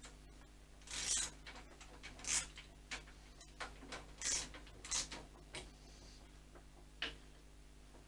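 Irregular clicks and short scraping sounds of metal motorcycle parts being handled, as a fork leg is fitted into the yokes. They come in a cluster over the first few seconds, with a single click near the end.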